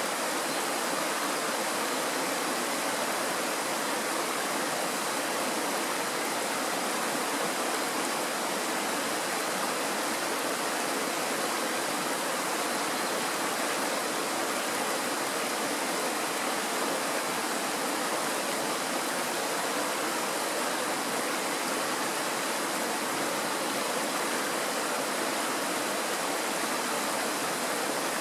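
Shallow mountain stream running over a stony bed and small riffles: a steady, even rush of water.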